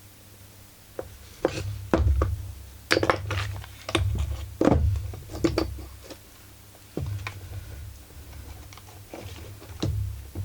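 Chainsaw parts and hand tools being handled while a crankcase is worked apart: irregular clicks, knocks and short rattles, busiest in the first half and picking up again near the end.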